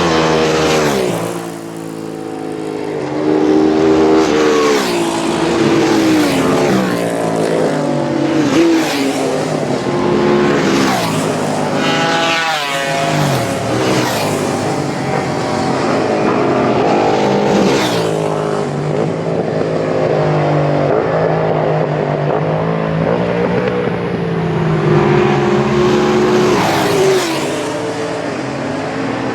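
Road-racing motorcycles passing at full speed one after another, engines screaming up through the gears in rising steps and dropping in pitch as each goes by, with one sharp fall in pitch about halfway through.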